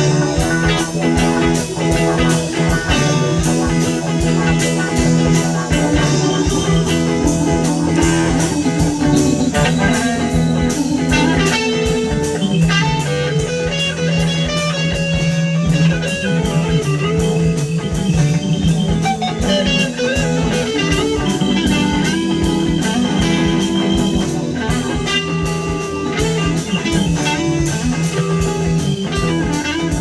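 Live rock band playing an instrumental jam: electric guitars and keyboard over drums, with a steady beat.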